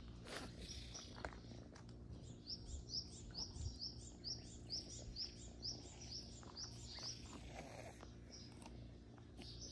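A songbird repeating a quick series of short, high, rising notes, about three a second, for some five seconds in the middle.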